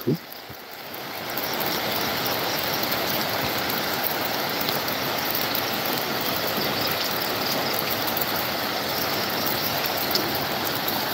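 Steady rushing of a fast-flowing, monsoon-swollen hill river, swelling up over the first second or so and then holding even.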